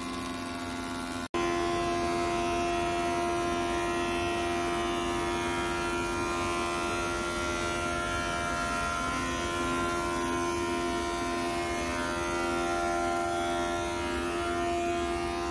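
Old cast-iron thickness planer running steadily as wooden boards are fed through it, a continuous machine drone with a steady hum over the cutting noise. The sound cuts out for an instant about a second in.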